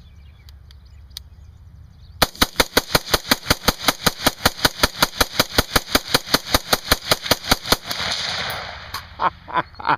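AR-15 rifle firing a fast, even string of shots, starting about two seconds in and lasting about five and a half seconds, then a few more separate shots near the end.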